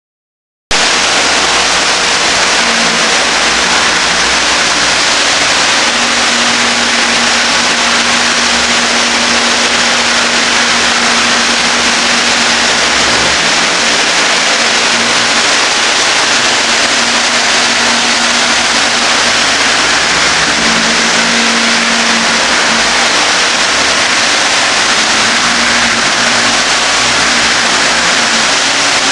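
Milking parlor's automatic line wash running: a loud, steady rush of water and air through the milking units and lines, with a faint hum underneath. It starts abruptly just under a second in.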